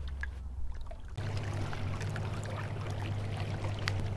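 Small waves washing and lapping against a rocky shoreline, a steady wash that comes in about a second in, with a few faint clicks.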